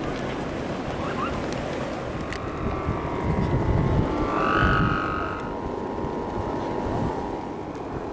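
Strong wind buffeting the microphone, a steady low rumbling roar. About halfway through a held, pitched tone rises above it for a few seconds and then fades.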